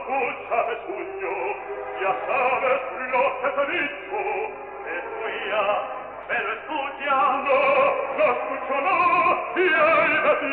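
Opera music: an orchestra with operatic singing, the notes wavering with vibrato.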